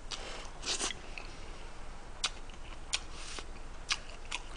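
Soft chewing of a mouthful of pilaf, with a few light clicks of a metal fork against a ceramic plate.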